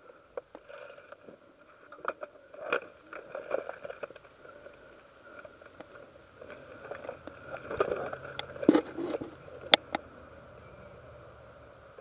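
Rustling and scraping of movement with scattered sharp clicks and taps; the loudest clicks fall a little under nine and ten seconds in. A faint low hum comes in about halfway through.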